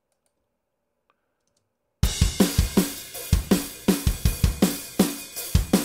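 About two seconds of silence, then playback of raw multitrack drums starts abruptly: kick, snare and cymbals in a busy, driving pop-punk beat, with tambourine and shaker tracks layered in as extra percussion.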